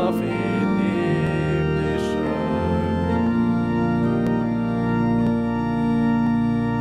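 Church organ playing slow sustained chords that change every second or so.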